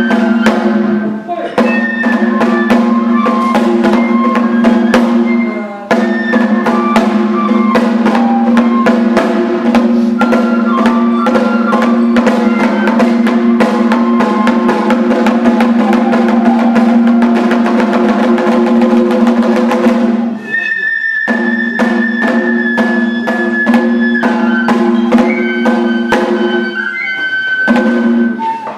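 Daikagura accompaniment: fast, dense drumming under sustained flute lines, playing straight through with short breaks about six seconds in and again about twenty seconds in.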